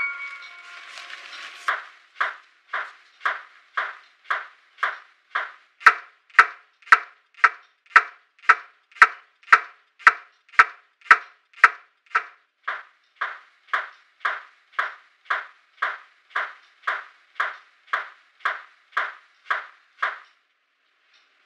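A kitchen knife chopping on a wooden cutting board in a steady rhythm of about two cuts a second, sharpest and loudest in the middle stretch, stopping shortly before the end.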